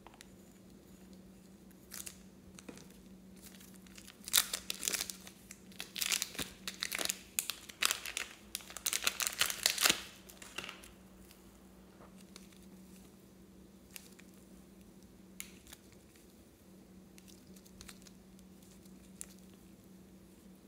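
Crinkling, crackling handling noise in a dense run of loud bursts lasting about six seconds, then a few scattered small clicks, over a faint steady hum.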